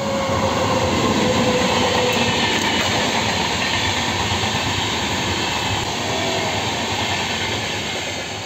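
Indian Railways train passing close by, a steady loud rush and rattle of coach wheels on the rails that eases a little near the end.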